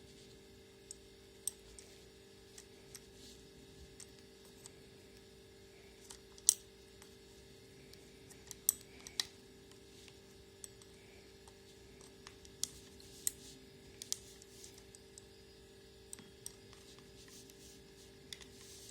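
Irregular sharp clicks and light knocks from handling a Soviet "Dorozhny" folding travel alarm clock made by the 2nd Moscow Watch Factory, over a faint steady hum.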